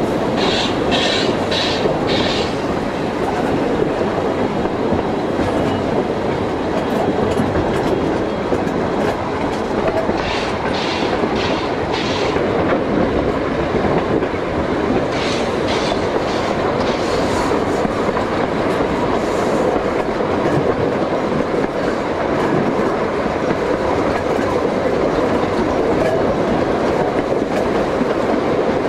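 Steam-hauled 3'6" narrow-gauge passenger train heard from an open carriage window: a steady rolling rumble of wheels on the rails. Short runs of clickety-clack come as the wheels cross rail joints, near the start, about ten seconds in and again about fifteen seconds in.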